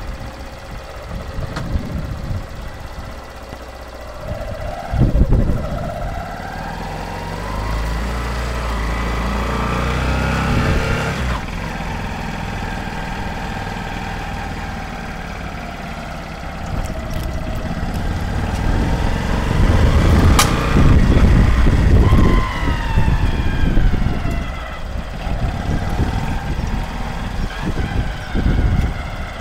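Honda CBF125's single-cylinder engine running and revved up and back down twice, with a sharp click near the top of the second rev; the bike is making a strange noise that the owner cannot trace.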